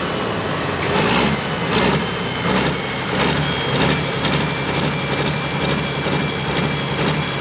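Super Pro Farm pulling tractor's engine running on the line, with a steady high whistle over it and short swells of noise about every two-thirds of a second.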